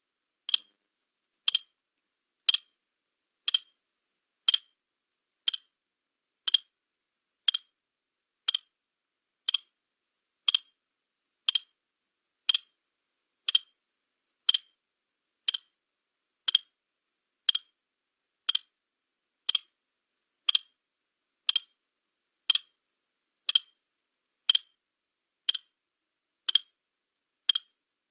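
Countdown timer sound effect ticking, one sharp tick per second with silence between, counting down a 30-second answering time.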